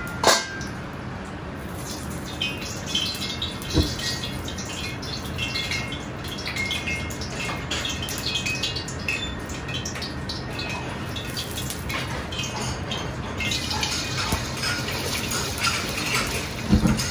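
Gas wok burner running with a steady rush under a carbon-steel wok. A metal ladle clinks against the wok at the start, and the oil in the wok crackles lightly as it heats. About 13 s in, beaten egg goes into the hot oil and a loud sizzle sets in, with ladle knocks against the wok near the end.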